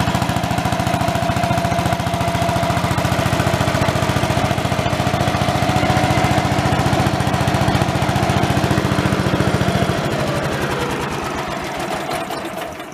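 16 horsepower cast-iron Briggs & Stratton engine of a 1974 Allis Chalmers 716 hydrostatic garden tractor running steadily with a rapid, even beat. About ten seconds in its deep beat cuts out and the sound dies away.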